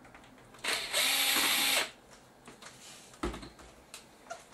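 Cordless electric screwdriver whirring for about a second as it backs out a screw, then a single thump about three seconds in.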